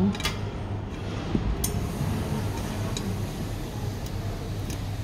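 A few light clicks and taps of metal as a wire dish rack shelf is worked onto its metal frame, over a steady low hum.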